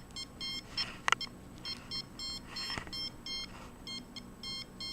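Handheld RF meter sounding rapid, short, high electronic beeps in uneven runs as the signal it reads goes up and down, with a couple of faint clicks.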